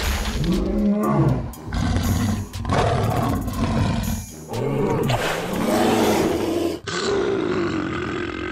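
Dinosaur roar sound effects: a series of long, deep roars, one after another, with short breaks between them.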